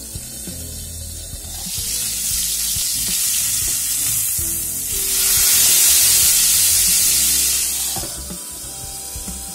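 Steak sizzling in a hot heavy iron pan. The frying grows loud once the glass lid is lifted and the steak is turned with tongs, and it drops back when the lid goes on again near the end.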